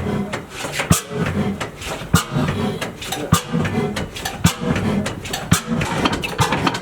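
Old stationary diesel engine running slowly, with a sharp knock about once a second.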